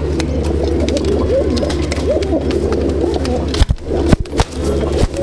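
Many Andhra high-flying pigeons cooing together in a loft, over a steady low hum. A few sharp knocks between about three and a half and four and a half seconds in, and one more near the end, are the loudest sounds.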